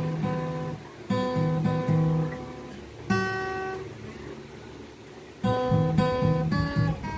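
Acoustic guitar strummed in chords, no singing. A few strums, then one chord left ringing and fading for about two seconds, then a quicker run of strums near the end.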